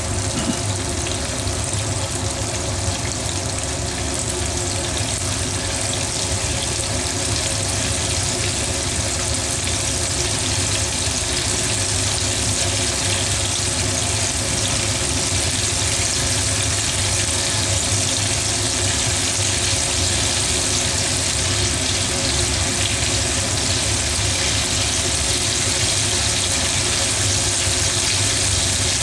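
Pieces of meat deep-frying in hot oil in a frying pan: a steady, dense sizzle that grows a little louder in the second half.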